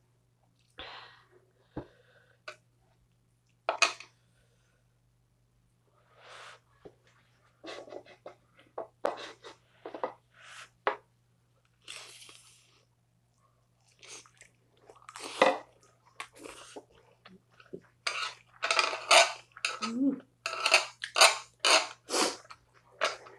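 A person eating spicy stir-fried noodles and grilled pork belly close to the microphone: wet chewing and mouth sounds, short and irregular, coming thick and fast in the last few seconds, with a few light clicks of chopsticks on dishes.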